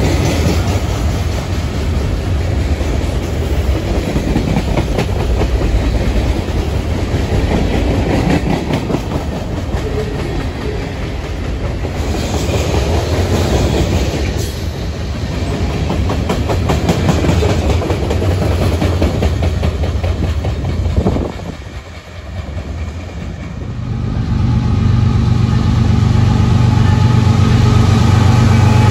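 Freight train passing close by, its cars rolling past with a continuous rumble and rapid clacking of wheels over the rail joints. After a brief drop about 22 seconds in, a steady low diesel engine drone from an approaching CSX locomotive takes over.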